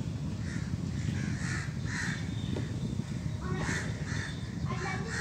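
Crows cawing: short, harsh calls in two quick runs with a pause between them, over a steady low rumble.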